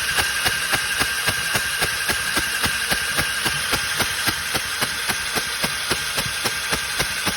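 Electric starter of a 1998 Honda Foreman 400 ATV cranking the engine with the spark plug out: a steady starter whine with regular ticks about five a second. This is the second crank after a short pause, the crank on which the plug sparks.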